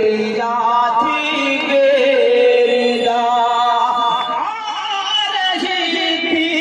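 A man singing a Muharram noha, a Shia lament, into a microphone, in long held lines that rise and fall in pitch.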